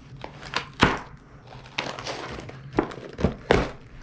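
Plastic Lego pieces clicking and knocking as they are handled and pressed together: a handful of sharp clicks, the loudest about a second in and three more in the last second and a half.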